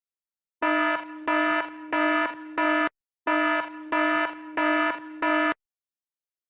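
Electronic alarm sound effect: a low-pitched, buzzy beep repeated in two bursts of four, about one and a half beeps a second, with a short pause between the bursts.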